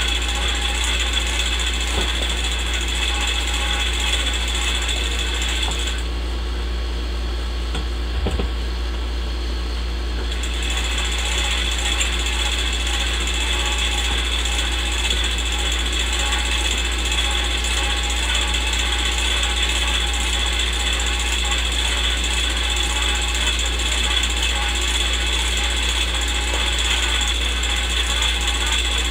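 Old-film sound effect of a movie projector running: a steady mechanical whir and clatter over a low hum, with faint crackle. The high hiss thins out for a few seconds about six seconds in.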